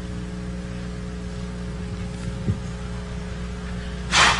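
Steady low electrical hum with light hiss, the recording's background during a pause in speech. Near the end comes a short burst of breathy noise.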